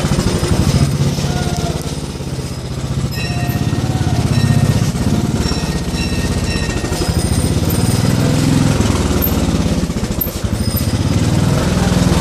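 Small motorcycle engine running at low speed, its pitch rising and falling with the throttle. Several short horn beeps sound in the middle stretch.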